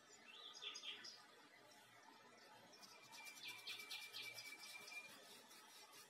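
Faint birdsong over an even background hiss: a short chirping call about half a second in, then from about three seconds a thin steady whistle with a rapid trill above it, stopping about five seconds in.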